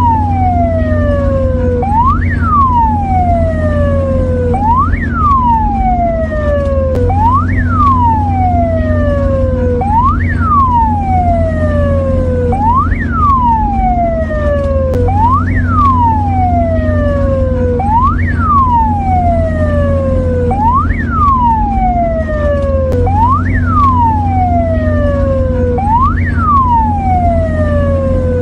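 Mexican ambulance siren cycling steadily: each cycle is a quick rising whoop and then a long falling glide, about once every two and a half seconds. A steady low hum runs underneath.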